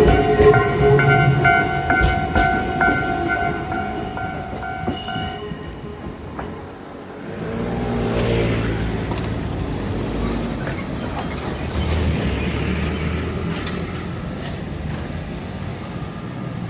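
Shizuoka Railway electric train pulling out of a passing siding over a spring switch. A steady multi-tone whine and scattered wheel clicks stop about five seconds in, then a rumble of wheels and running gear carries on to the end.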